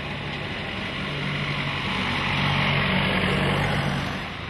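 Vintage tractor engine running steadily as the tractor drives past. It grows louder to a peak about three seconds in, then falls away near the end.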